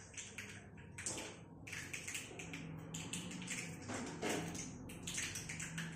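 Kitchen scissors snipping fresh coriander leaves: an irregular run of short, sharp snips, a few each second.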